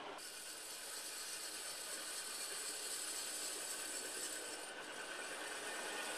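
Ride-on scale model GE23 locomotive and its riding car rolling along small-gauge track, a steady rolling hiss that grows louder as the train comes closer.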